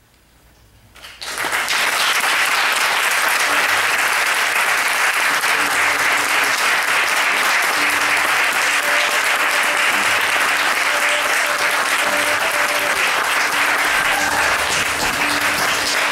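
Theatre audience bursting into applause about a second in, then clapping loudly and steadily as the show ends.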